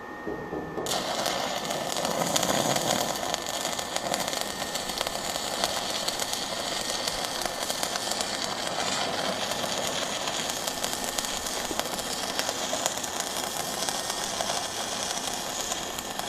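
Stick (manual metal arc) welding with a 16TC electrode: the arc strikes about a second in, then a steady, crackling sizzle as the rod runs a flat butt weld on 5 mm steel plate.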